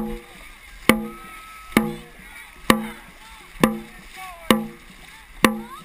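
Dragon boat drum beaten in a steady race rhythm, about one hit every 0.9 seconds. Each hit is a sharp crack followed by a short booming ring, setting the crew's paddle stroke.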